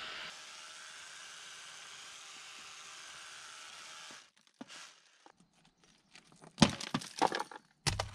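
A heavy power drill running steadily as it bores into a stone-and-mortar wall, stopping about four seconds in. After a few small clicks, several sharp knocks and clatters near the end as loose stone and mortar are worked out of the hole by hand.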